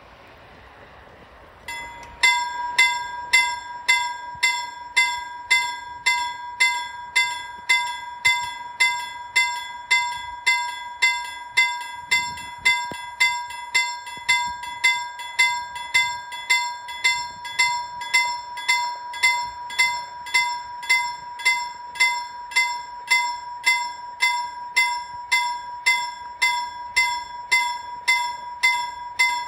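Level crossing warning bell that starts about two seconds in and rings steadily, with even, repeated strokes over a held ringing tone. It signals that the crossing has been activated for an approaching train.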